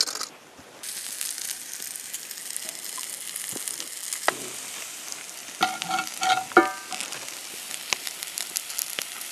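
Floured trout fillets frying in hot oil in a cast-iron skillet: a steady, dense sizzle that starts about a second in. A few short pitched notes sound over it about six seconds in.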